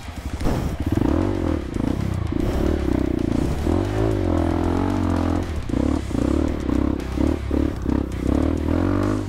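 Dirt bike's single-cylinder engine revving up and down over and over, straining under load to climb a slippery clay slope.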